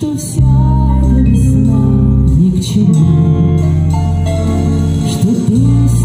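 Live band music: electric guitar, bass and drums playing a slow song, with a woman singing over it through the stage speakers.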